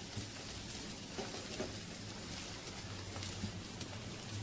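Oil sizzling and crackling steadily around a large flat fritter shallow-frying in a nonstick pan, over a low steady hum.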